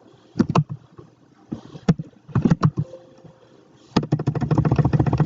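A man's voice in short, mumbled fragments, then a drawn-out hesitation sound starting about four seconds in.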